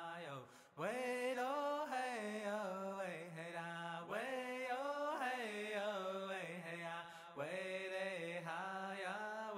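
A single voice chanting a slow melody in long held, wavering notes, phrase after phrase with short breaths between. No drum is heard.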